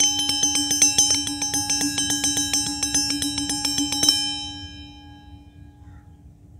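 A bright bell-like chime effect: fast, evenly repeated strikes on a few steady pitches for about four seconds. It stops suddenly and the tones ring away.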